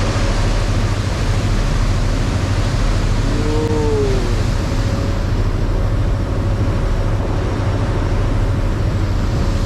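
Loud, steady rushing noise with a deep low rumble, and a person's short call about three and a half seconds in.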